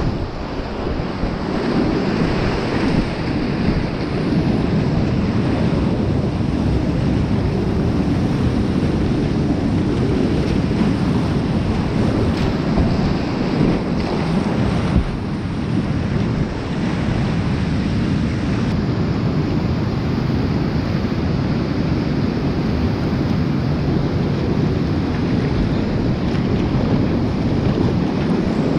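Whitewater rapids rushing around a kayak, with water splashing over the bow and paddle close to the microphone. The noise is steady and dense, with a few sharper splashes.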